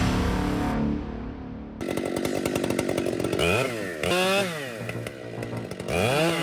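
Two-stroke chainsaw engine revving: a fast buzzing run, then the pitch swings up and down twice, and near the end it climbs and holds at high revs.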